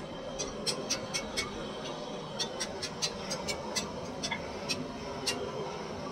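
Metal and wooden cooking utensils clicking and tapping while roomali roti is rolled out and turned on a hot pan: an irregular run of sharp clicks, about two or three a second, over steady background noise.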